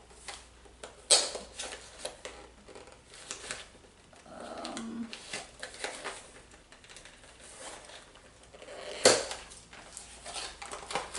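Products and their plastic and cardboard packaging being handled and set down: scattered clicks and rustling, with two sharp knocks, about a second in and near the nine-second mark.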